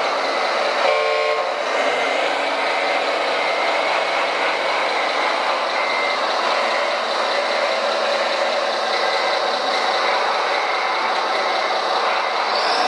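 Radio-controlled model construction trucks running, with short reversing beeps repeating over their steady motor and engine sound. A brief tone sounds about a second in.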